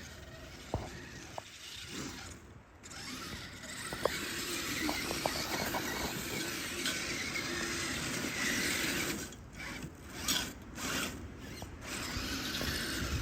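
Radio-controlled Blizzard snowcat's electric drivetrain and plastic tracks running on icy snow. It picks up about four seconds in, then cuts out and comes back several times near the end as the throttle is let off and on.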